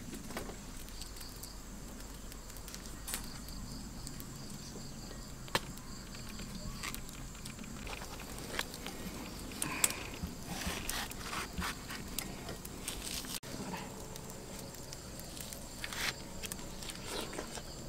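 Insects, likely crickets, trilling faintly and steadily in the background, with scattered light clicks and taps, busiest in the middle.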